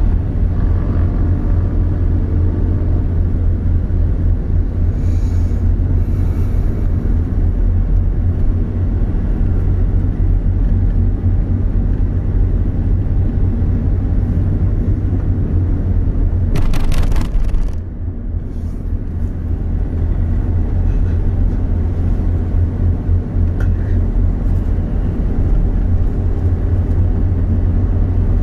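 Steady low rumble of a moving vehicle driving along a city road. A short rapid clatter of clicks comes about 17 seconds in, and the rumble dips for a moment afterwards.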